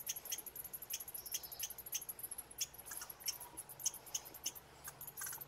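Squirrels chattering at each other in a quarrel: a rapid, uneven run of sharp, high clicks.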